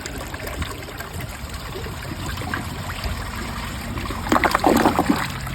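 2005 Crane Plumbing toilet flushing a washcloth from a tank that is not quite full: a steady rush of water through the bowl, with a louder gurgle about four seconds in. The washcloth goes down.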